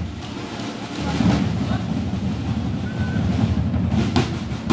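Steady murmur of a large outdoor crowd, with the drums paused. A single drum stroke comes about four seconds in, just before the drumming starts again.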